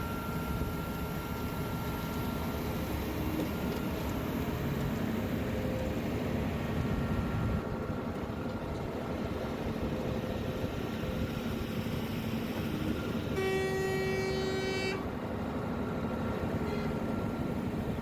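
Construction machinery engines running steadily at a concrete pour, with a vehicle horn sounding once for about a second and a half roughly three-quarters of the way in.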